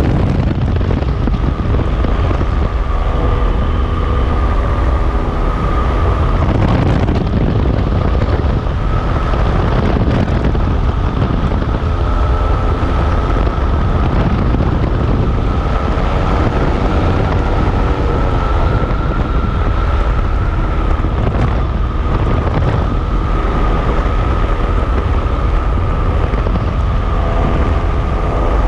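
A vehicle running steadily: a heavy low rumble with a steady high whine above it and wind buffeting the microphone.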